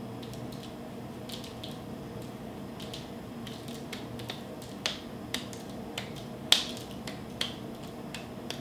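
Hands patting and pressing soft scone dough into a ball, giving scattered short sharp slaps, the loudest about six and a half seconds in, over a steady low hum.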